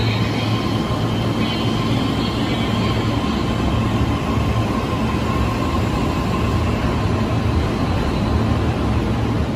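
JR East E131 series electric multiple unit pulling out of the platform, its motors and wheels running steadily as the cars move past close by, gathering speed.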